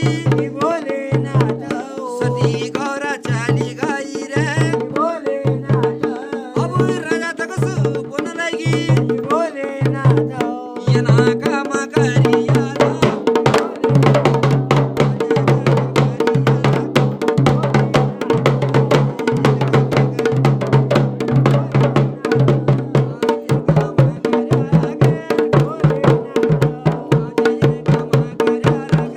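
Garhwali folk music for mandan dancing: a voice sings over a steady drum beat and a held drone, then about eleven seconds in the singing stops and fast, dense drumming takes over.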